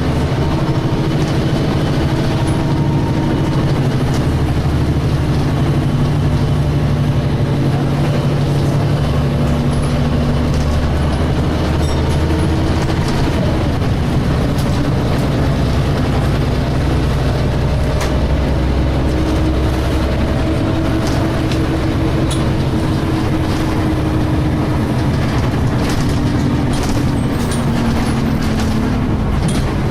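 A DAF SB220 bus's diesel engine pulling, heard from on board, with a whining 'hoovering' tone over the engine. The pitch shifts slowly as engine speed changes, and a few short rattles and clicks come in the second half.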